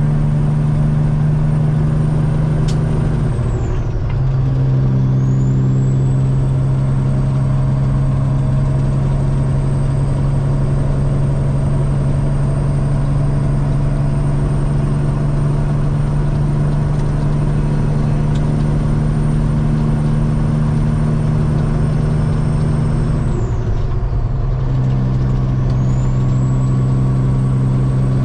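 Semi truck's diesel engine running steadily under way. The engine note breaks off twice, about four seconds in and again near the end, as the truck shifts gears, and a high whine dips and climbs back with each shift.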